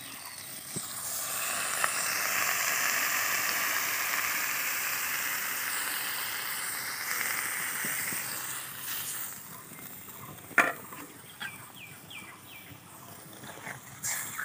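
Spiced water poured into hot oil over lightly fried puti fish in a metal kadai, sizzling loudly for about eight seconds before dying down. A single sharp knock follows about ten seconds in, and light spatula clicks near the end.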